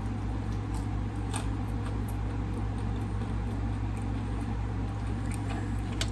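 A person chewing food close to the microphone, with small wet mouth clicks, over a steady low electrical hum.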